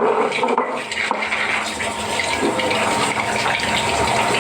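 Water running and splashing steadily, as laundry is washed by hand in a tub or bucket.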